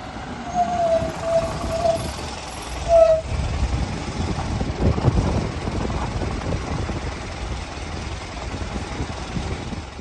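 Fire service vehicle's engine approaching and passing close by, growing into a loud low rumble that is strongest about five seconds in and then eases. A few short high tones sound in the first three seconds.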